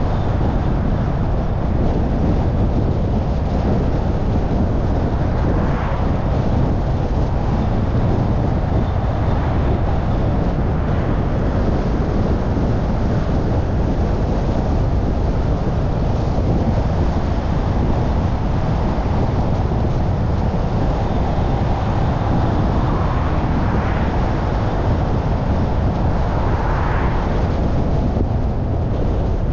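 Steady road and wind noise from a moving car: low tyre rumble with wind on the microphone, and a few brief swells about six seconds in and again near the end.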